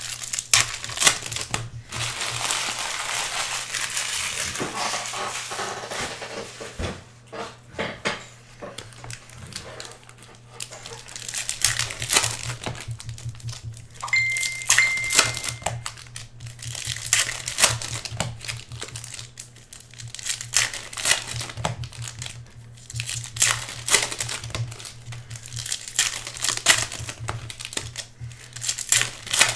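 Card-pack wrappers crinkling and tearing open, with repeated sharp clicks and rustles of trading cards being handled, while a hobby box of football cards is opened. A brief high beep sounds about halfway through.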